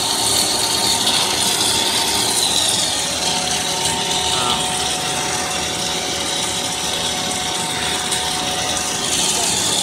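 Twin-screw food extruder running steadily while extruding a continuous twisted dough rope: a dense, even mechanical din with a few steady whining tones.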